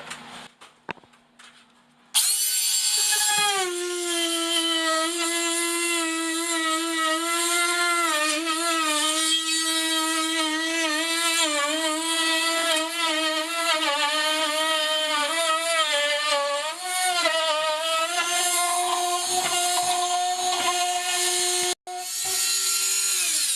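Cordless rotary tool with a round-over bit, running at high speed with a steady whine whose pitch wavers and dips as the bit cuts, rounding over a corner. It starts about two seconds in, cuts out for an instant near the end, and winds down as it stops.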